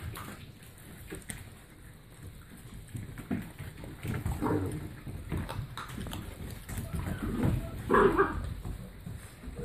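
Seven-week-old puppies making a few short calls while chewing raw chicken backs, the loudest call about eight seconds in, with scattered clicks of chewing and paws on the wooden floor.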